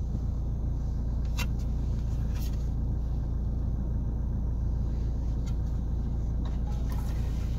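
Steady low rumble of a car idling, heard inside the cabin, with a few faint clicks as a DVD is handled.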